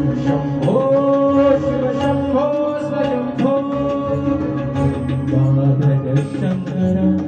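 A man sings an Indian song into a microphone with tabla accompaniment, amplified through a PA system. He holds long notes and slides up into each new phrase, about a second in and again around two and a half and three and a half seconds, while the tabla strokes keep up a steady beat underneath.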